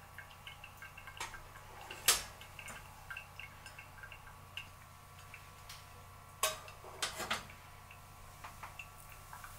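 Brewed coffee dripping from a paper-filter pour-over dripper into a glass server: faint, irregular drops. There are a few louder sharp clicks, the loudest about two seconds in and a cluster around six to seven seconds in.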